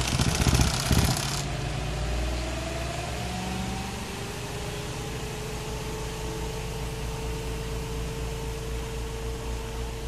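Spin-dryer motor of a Panda portable twin-tub washer starting up. A brief rattle comes first, then a whine that rises in pitch over a second or two and settles into a steady hum as the spin basket comes up to speed.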